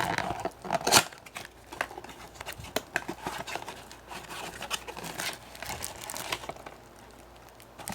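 Trading-card packaging being handled: irregular crinkling and rustling of plastic card packs and the blaster box, loudest about a second in and tailing off near the end.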